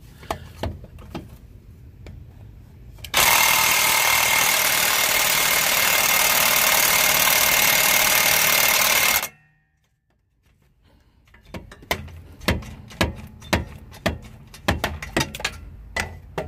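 Cordless impact wrench hammering steadily for about six seconds on a rusted exhaust-flange bolt of the rear catalytic converter. The bolt does not break loose. It stops abruptly, and a run of sharp clicks and knocks follows.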